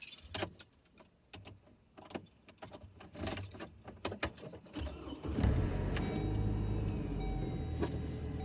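Keys jangling and clicking, then a pickup truck's engine starts about five seconds in and runs with a steady low hum.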